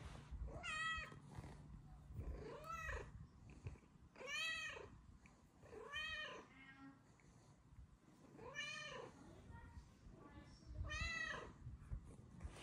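Snow Lynx Bengal cat meowing while being petted: about six short, happy meows a second or two apart, each rising and then falling in pitch.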